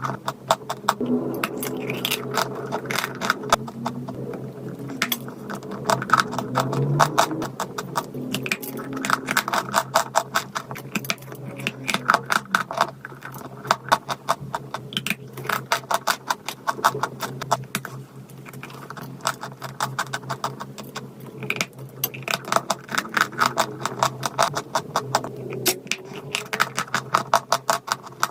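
Crunchy chalk clay being bitten and chewed close to the microphone: dense, rapid crunching in clusters with short pauses.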